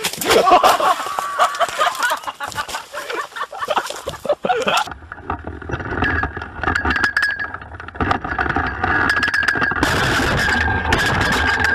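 Shouting voices for the first few seconds, then steady wind rushing over a hang glider's camera microphone, with a deep rumble and a thin whistling tone, growing louder about nine seconds in.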